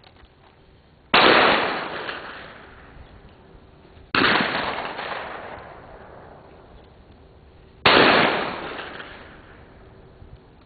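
Three shotgun shots, about three to four seconds apart, each sharp crack fading out over a couple of seconds.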